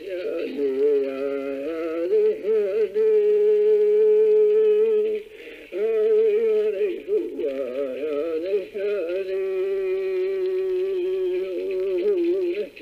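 A man singing a traditional Passamaquoddy song solo, holding long wavering notes, with a short pause for breath about five seconds in.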